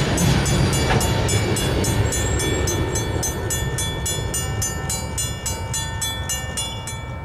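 Safetran mechanical railroad crossing bell ringing in rapid, even strikes, about five a second, over the fading rumble of the last ballast cars rolling past. The bell stops abruptly near the end as the crossing signal deactivates.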